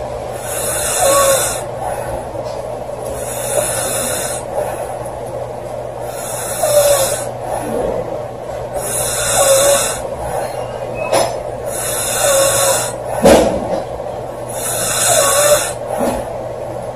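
A woman snoring loudly in a slow, even rhythm, about one snore every three seconds, six in all. There is one short, sharp louder sound about three-quarters of the way through.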